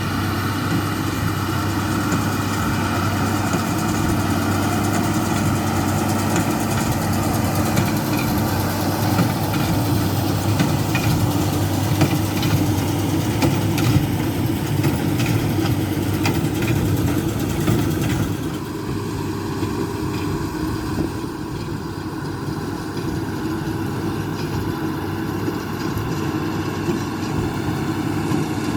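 Diesel engines of harvest machinery (a combine harvester and tractors) running steadily. About eighteen seconds in, the brighter upper part of the sound drops off suddenly and a lower engine drone carries on.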